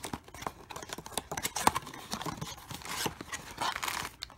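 Small cardboard blind box being handled and opened by hand, its flaps and sides scraping and rustling in a run of quick clicks, with plastic packaging crinkling as the contents are pulled out.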